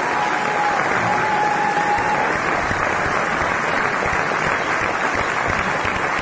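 Audience applauding steadily after a line of a read-out speech, with one held high-pitched cheer over it for about the first two seconds.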